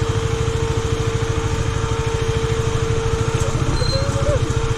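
Single-cylinder engine of a KTM 250 Duke motorcycle running steadily as it is ridden, with even, rapid firing pulses.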